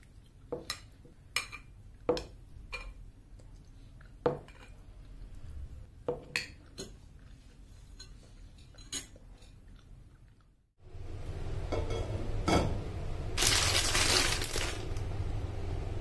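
Metal spoon clinking and scraping against a ceramic bowl, about ten sharp separate clinks spread over the first ten seconds. After a brief break, a louder stretch of rustling noise follows, loudest for about a second near the end.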